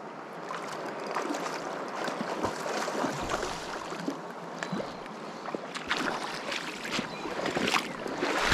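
River water running over stones: a steady rush, with many small irregular splashes and clicks.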